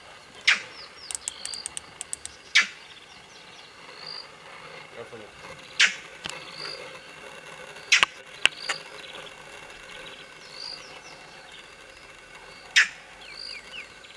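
Bushveld ambience: short, sharp animal calls every couple of seconds over steady bird chirping and insect sound, with a quick run of clicks about a second in.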